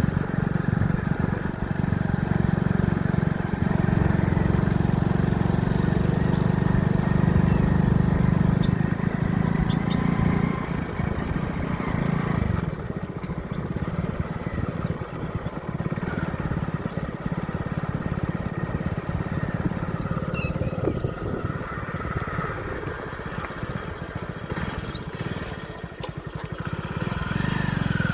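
Motorcycle engine running steadily under way, easing to a lower, less even note about twelve seconds in. A brief high whistling chirp sounds near the end.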